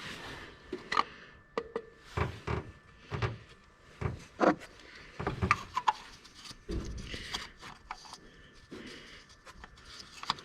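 Irregular light knocks, clicks and clinks, with some rubbing, of tools and parts being handled at the end of an oil change; a few of the clinks ring briefly.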